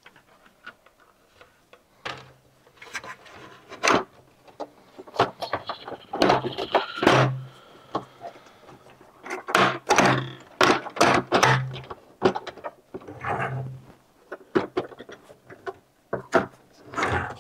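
Hard plastic clicks, knocks and rattles of a robotic pool cleaner's housing and filter basket being handled and fitted together, with bumps against a wooden tabletop. The knocks come irregularly, several in quick runs.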